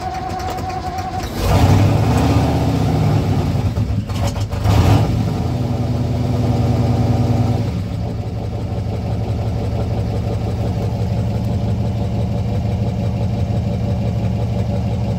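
1959 Ford F600 truck engine running cold, heard from inside the cab: revved with the accelerator about a second and a half in and again around five seconds, then settling back to a steady idle about eight seconds in.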